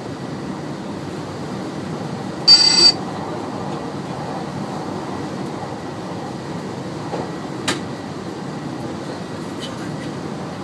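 Steady running rumble of a train on the rails, heard from inside the driver's cab. About two and a half seconds in, a short, loud, high-pitched electronic beep sounds once, and a sharp click is heard near eight seconds.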